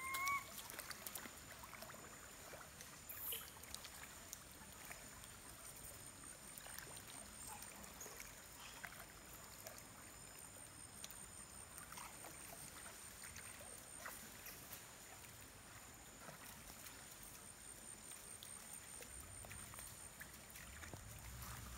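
Faint water sounds of long-tailed macaques swimming in a rocky pool: soft lapping and small splashes with scattered light ticks. A steady high faint whine runs underneath, and a brief rising squeak comes right at the start.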